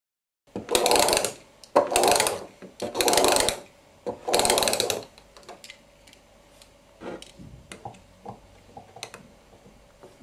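A small mechanism ratcheting in four loud strokes, each just under a second, then scattered light clicks and ticks over a faint steady tone.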